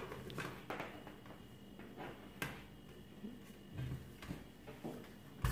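A few faint clicks and soft knocks as a toaster's power cable is handled and pressed into the cable storage on its plastic base.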